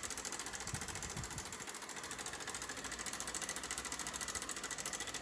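A 160 cc motorcycle's single-cylinder engine idling with a rapid, even ticking clatter from the top end. The noise is from a slack cam timing chain whose hydraulic tensioner has seized and no longer takes up the slack.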